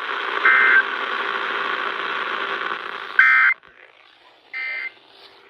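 Weather radio receiver hissing with static that cuts off after about three seconds, with short electronic alert tones about a third of a second each: one over the hiss about half a second in, then two more about a second and a half apart after the hiss stops. They mark the start of a tornado warning alert.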